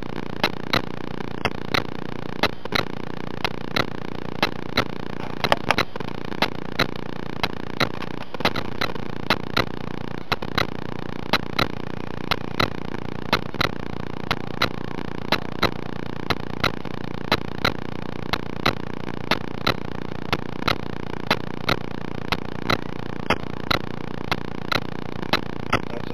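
Background music with a steady beat and synthesizer sounds.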